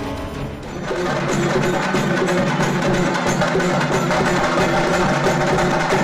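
Fast percussion music with rapid, dense strokes, coming in loud about a second in after a quieter start.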